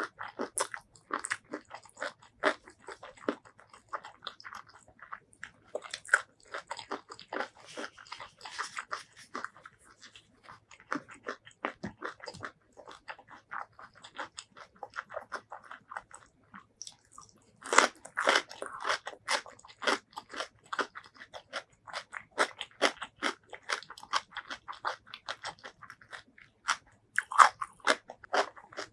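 Close-miked eating: crisp crunching bites and chewing, the crunchiest of them from raw cucumber, with the loudest run of crunches about 18 seconds in.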